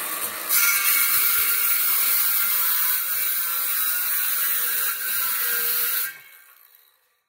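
Ryobi cordless circular saw running and cutting through a masonry board panel, a loud, steady, gritty whine. About six seconds in the trigger is released and the blade spins down and fades out.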